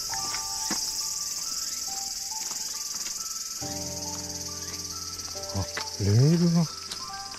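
Cicadas shrilling in a steady, high summer chorus. Under it are soft background music notes and a held chord, and a short, loud rising tone about six seconds in.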